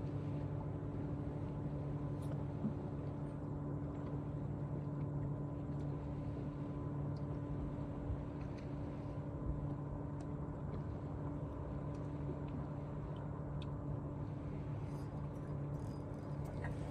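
Bow-mounted electric trolling motor on a bass boat humming steadily, holding the boat over the spot, with a few faint ticks near the end.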